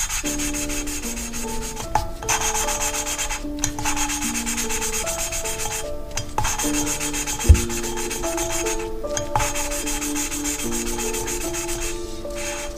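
Valve lapping on a Ford Crossflow cylinder head: a wooden lapping stick spun back and forth between the palms grinds a valve against its seat with grinding paste, making a steady gritty rubbing. It stops briefly every few seconds, and there is a single sharp knock about halfway through.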